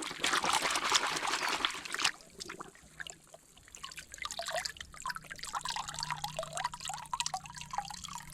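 Water splashing and running over plastic toys being washed for about two seconds, then dropping to quieter trickling and dripping.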